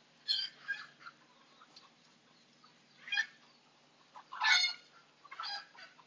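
Husky puppy giving about five short, high-pitched yelps and whimpers, the loudest about four and a half seconds in, while a thermometer is held in its rear to take its temperature.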